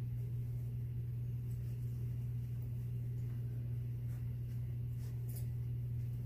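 A steady low hum, with a few faint clicks and a brief high clink a little after five seconds in.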